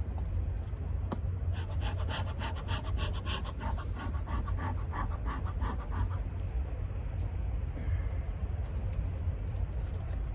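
Bees being cleared off a honeycomb frame: a few seconds of rapid, rhythmic swishing strokes, over a steady low rumble.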